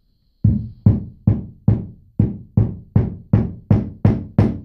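Hammer tapping a heavy-duty threaded plastic drywall anchor into drywall: about eleven steady blows, roughly two and a half a second, each a short knock that dies away quickly.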